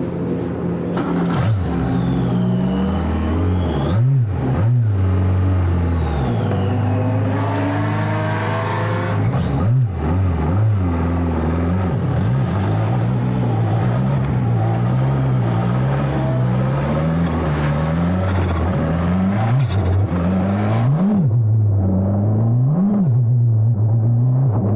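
Formula Abarth single-seater's turbocharged 1.4-litre four-cylinder engine running hard on track, its pitch climbing and falling repeatedly through the gears with several quick swings at the gear changes. A high whine rises and falls with the revs for much of the middle stretch.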